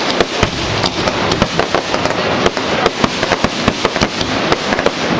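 Fireworks going off in a dense, rapid run of bangs and crackles, several a second without a break.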